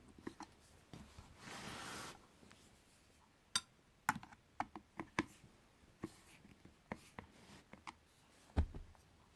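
Scattered clicks and knocks of hands handling the parts of a speaker being taken apart, with a short scraping rush about one and a half seconds in and a dull thump near the end.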